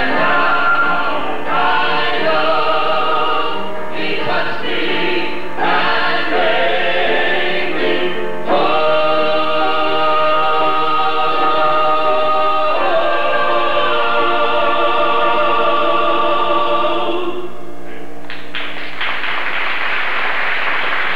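Mixed gospel vocal group of three men and a woman singing the close of a song in harmony, ending on a long held final chord. Applause follows near the end.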